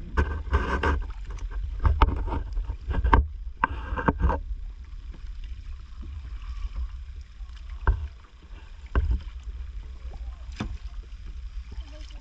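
Kayak paddles stroking through calm water, with splashes and water running off the blades, and a few sharp knocks in the second half.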